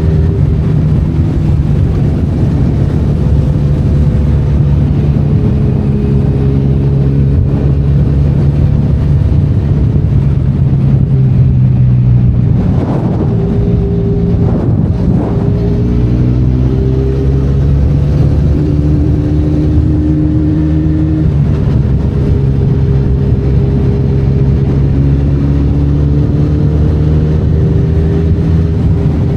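Benelli Leoncino 500 Trail's parallel-twin engine running under way, its note rising and falling gently with the throttle. There are two brief throttle changes around the middle.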